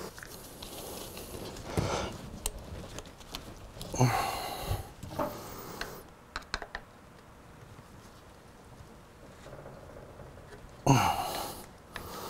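A man breathing out hard three times, the longest about four seconds in, as he strains to pry a stuck rubber coolant hose off a motorcycle water pump outlet with a screwdriver. Light metal clicks of the screwdriver come in between.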